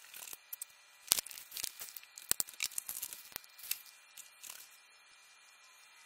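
Handling noise close to the microphone: an irregular run of crackles and sharp clicks, loudest in the middle, stopping a little before the last second.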